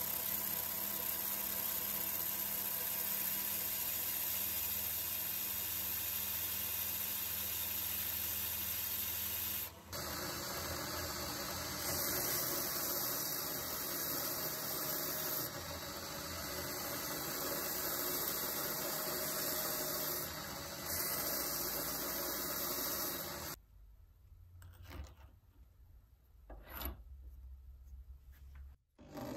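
Drill motor spinning a beech-wood handle blank while sandpaper is held against it, a steady motor hum under the rasp of sanding. About 23 seconds in the sanding stops, leaving a few light knocks.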